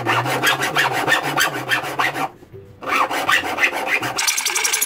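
Hand file rasping back and forth on the edge of a thin sheet-metal mounting bracket in quick strokes, with a short pause a little after two seconds.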